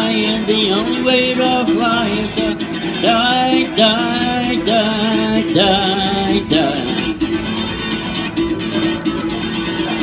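Acoustic guitar strummed steadily, with a man's wordless singing over it that wavers in pitch and drops out about seven seconds in, leaving the guitar alone.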